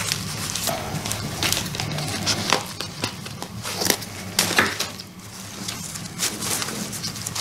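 Crumpled paper wrapping around a potted orchid's roots crinkling and rustling as it is handled, in irregular crackles that come thickest about halfway through, over a low steady hum.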